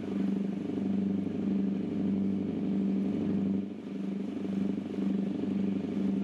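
Tour boat's engine running steadily under way: a low drone whose hum pulses about twice a second, dipping briefly a little past halfway.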